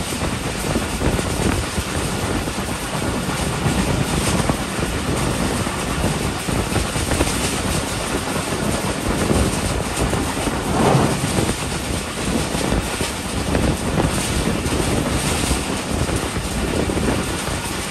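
Passenger train running at speed: a steady rush of wheel and rail noise with clattering from the track. The train passes over two railway bridges, about ten and fourteen seconds in.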